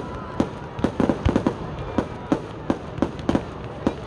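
Aerial fireworks bursting in quick, irregular succession: a dozen or so sharp bangs, some in close pairs, over a steady crackle.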